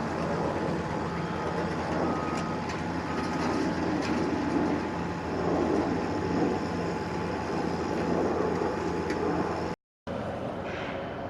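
Vehicle or construction machine engine running steadily, a low hum under a wash of site and traffic noise. It cuts out abruptly for a moment near the end.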